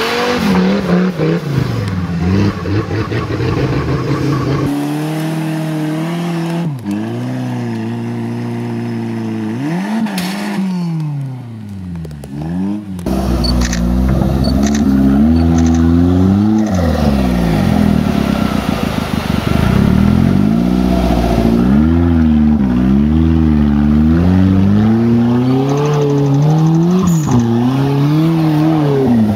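Off-road trial 4x4 engines revving hard under load as they climb steep muddy slopes, the pitch rising and falling again and again. The engine note changes abruptly a couple of times from one vehicle to the next.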